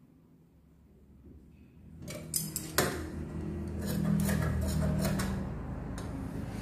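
Steel tailor's shears clinking against the tabletop as they are picked up, two sharp clicks about two and a half seconds in, followed by rustling fabric as they start to cut.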